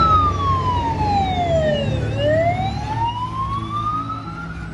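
Fire-truck siren wailing: one slow sweep whose pitch falls for about two seconds, then rises again, over a steady low hum.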